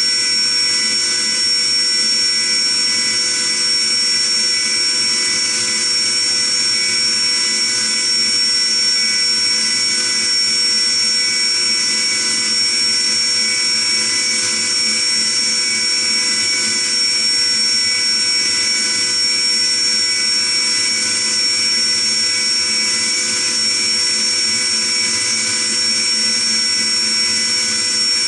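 Five-axis CNC machining centre milling a metal block with an end mill: a steady high-pitched spindle whine made of several constant tones over an even cutting hiss, unchanging in pitch and level.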